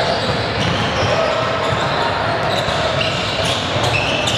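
Basketball bouncing on a hardwood gym floor during play, with indistinct voices in the echoing hall.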